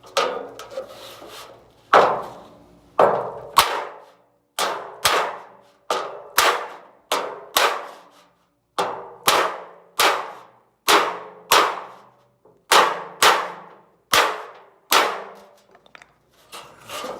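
Dented sheet-steel roll pan being knocked straight with a wood block: about twenty sharp, ringing clangs, roughly one or two a second, some in quick pairs.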